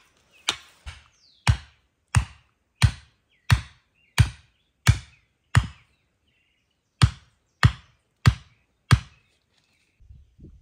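Repeated blows of a tool on a wooden garden stake: about a dozen sharp, evenly paced strikes, one every two-thirds of a second, in two runs with a short pause between them.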